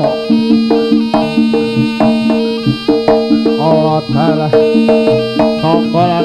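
Live jaranan gamelan accompaniment: drums and gong-chime percussion keep a steady beat under held low tones, with a wavering high melody line coming in about two-thirds of the way through.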